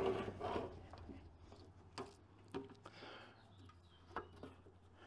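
A few faint clicks and knocks of a car quarter-window glass, regulator and motor assembly being handled and fitted onto its rollers and tracks, over a steady low hum.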